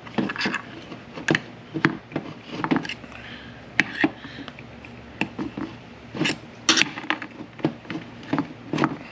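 Irregular metallic clicks, taps and clinks of steel shift-tower parts being handled and fitted as a shift rail with its detent is installed in an M5R1/M5R2 manual transmission shift tower.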